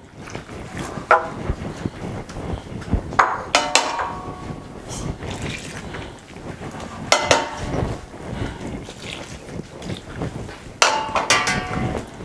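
Hands mixing and kneading flour dough in a large glass bowl: a steady rough rustle, broken about four times by knocks against the bowl that ring briefly.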